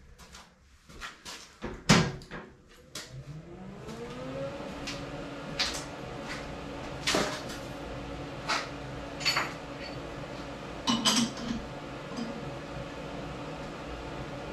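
Monarch 10EE lathe being started: a few clicks and a sharp clunk of its controls, then its drive motor winds up in pitch over about two seconds and settles into a steady hum. Several metallic clanks and knocks follow over the running machine.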